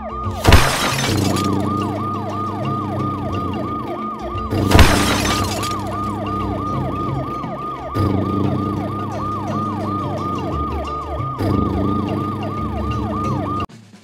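A siren-like sound effect: a falling tone repeating about three times a second, over background music. There are two loud crashes, about half a second in and about five seconds in. The siren and music stop abruptly near the end.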